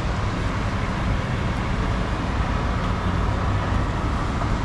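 Steady road traffic noise from motor vehicles on a busy city avenue: an even low rumble with a hiss above it and no single standout event.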